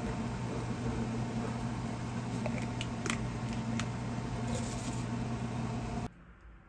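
Steady electrical hum of a running kitchen appliance, with a few light clicks and a short hiss from small handling sounds in the middle. The hum cuts off suddenly near the end.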